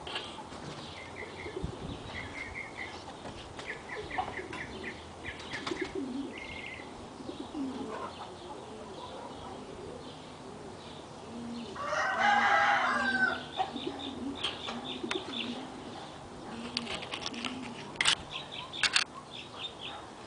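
Outdoor birdsong: small birds chirping in quick trills, low dove coos here and there, and a rooster crowing once, loudly, about twelve seconds in.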